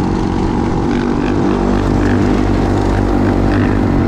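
Dirt bike engine running steadily at cruising speed, heard from on board the moving bike, with a low, even drone throughout.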